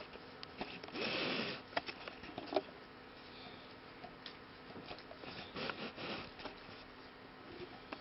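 Dog sniffing and nibbling at a bare human heel: a loud, breathy sniff about a second in, then small clicks and smacks of mouth and teeth, with another short flurry of sniffing and nibbling about two thirds of the way through.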